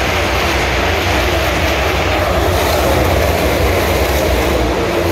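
A pack of NASCAR Cup Series stock cars passing at speed, their pushrod V8 engines making a loud, steady, dense mix of engine noise.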